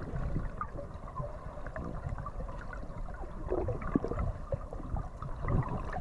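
Muffled underwater noise picked up by a submerged GoPro: water moving and rumbling, with scattered small ticks and pops.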